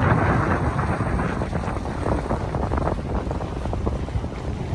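Wind buffeting the microphone aboard a boat under way at sea, a steady rushing noise.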